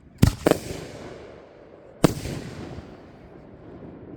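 Fireworks going off: three sharp bangs, two in quick succession just after the start and a third about two seconds in, each trailing off in a rumbling echo.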